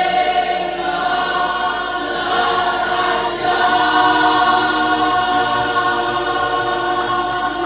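Mixed-voice youth choir singing a cappella, holding long sustained chords with a chord change about halfway through.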